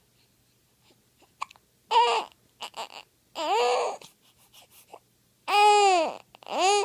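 A baby with the hiccups fussing in four short whimpering cries that bend up and down in pitch, the third the loudest. A short sharp hiccup comes about a second and a half in.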